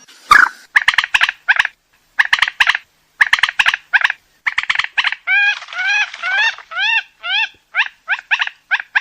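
A rail (burung mandar) calling: clusters of rapid, short notes, with a run of rising, upslurred notes about midway, then more quick notes.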